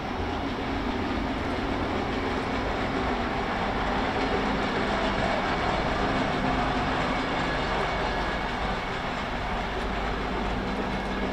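Tka7 rail truck's diesel engine running as it drives past along the track, with its wheels rumbling on the rails. It grows louder toward the middle, loudest about four to seven seconds in as it passes closest, then eases off.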